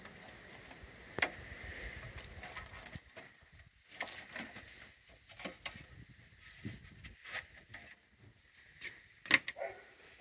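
The old perished rubber seal strip being pulled from the edge of a steel tractor bonnet: scattered soft clicks, rustles and light metal taps, with a sharper click about nine seconds in.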